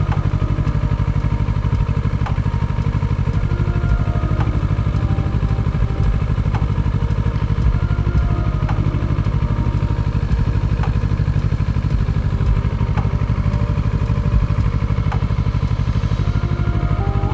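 Kawasaki ER-6n motorcycle's parallel-twin engine running steadily under way, at an even level with no big revs.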